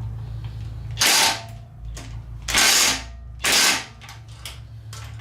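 Cordless DeWalt impact wrench hammering in three short bursts, about a second, two and a half and three and a half seconds in.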